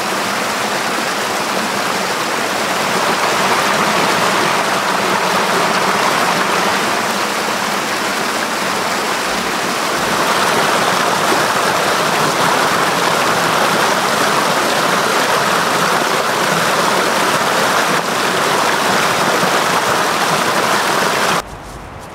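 Strong wind rushing through pine trees in a steady loud hiss, swelling slightly about halfway and cutting off suddenly near the end.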